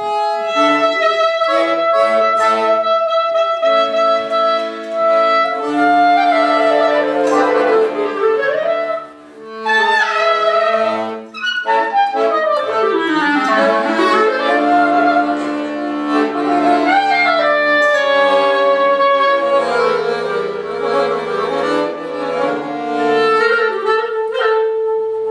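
Clarinet and piano accordion playing a duet. The clarinet holds long notes and bends and slides between pitches over the accordion's sustained chords, with brief pauses about nine and eleven seconds in.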